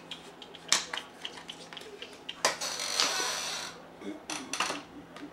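A small cardboard servo box being handled and opened: scattered clicks and taps, with a rustling scrape lasting about a second that starts about halfway through.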